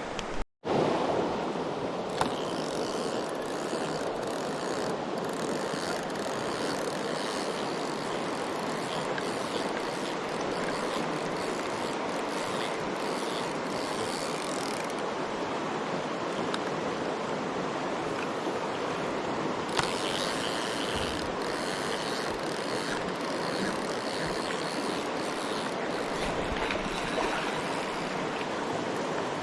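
Mountain stream water rushing steadily over rocks, with a scatter of faint clicks and handling sounds.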